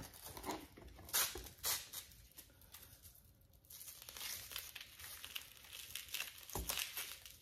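Rustling and scratching as a black fabric tourniquet holder with a Velcro strap is handled. There are two short scratchy sounds about a second in, then fainter scattered rustles from about four seconds on.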